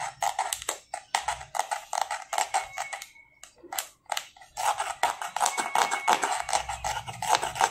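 Thumbnail rapidly scratching the scratch-off coating of the authenticity label on a cardboard microphone box, uncovering the product verification code. It is a fast, dense run of scratchy strokes that pauses for about a second in the middle, then resumes.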